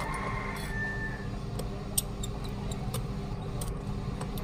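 Sharp small clicks and taps of fingers handling a plastic feature-phone body, scattered irregularly, the sharpest about two seconds in, over a steady low hum.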